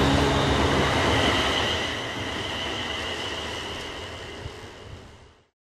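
Railway train noise with steady high-pitched tones, fading out to silence about five seconds in.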